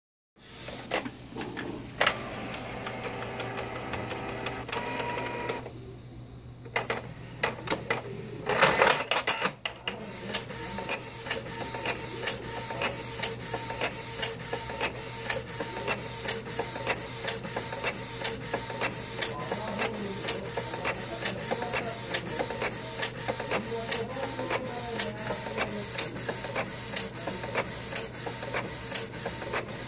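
Canon PIXMA iP2770 inkjet printer printing a photo: the paper-feed and carriage motors whir and click as it starts, with a loud burst of clicks about nine seconds in. Then the print-head carriage shuttles back and forth in a steady run of even clicks over a constant motor hum.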